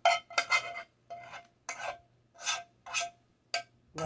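A spoon scraping the inside of a non-stick saucepan, about seven short strokes at roughly two a second, each with a slight metallic ring from the pan, as cooked paste is scraped out into a bowl.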